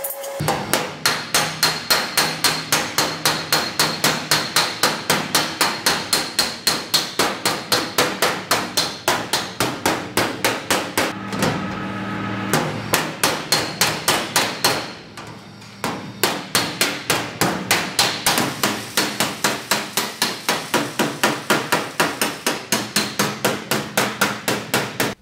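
Hammer and dolly working the steel rear quarter panel and wheel arch of a Mk2 Ford Escort: a long run of quick, even metal blows, about three a second, with two short breaks near the middle.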